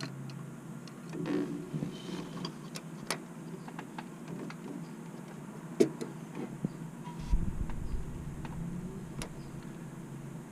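Scattered light clicks and taps of hand work fitting a new brake line into a flare union, with a short low rumble about seven seconds in.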